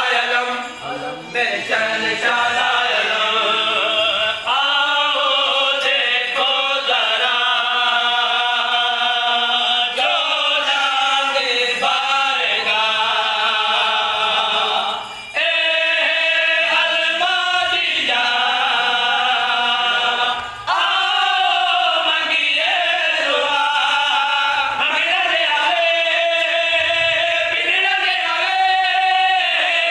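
A group of men singing a devotional qaseeda together without instruments, long sung phrases broken by a few short pauses for breath.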